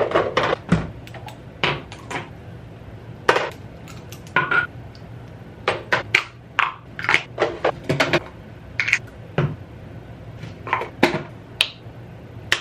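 Plastic skincare bottles and containers being handled: an irregular run of short clicks, taps and knocks as caps are opened and closed and bottles are picked up and set down. A low steady hum runs underneath.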